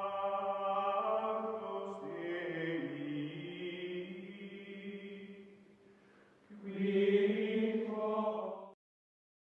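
Outro music of sustained, chant-like choral tones, held chords that change pitch a few times. It fades about six seconds in, swells back up, and then stops abruptly near the end.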